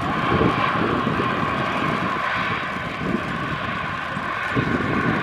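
Aircraft engines running steadily, with gusts of wind buffeting the microphone.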